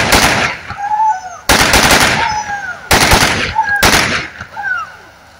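Automatic gun fire: four short bursts, each a rapid string of shots with a ringing echo after it, spread over about four seconds.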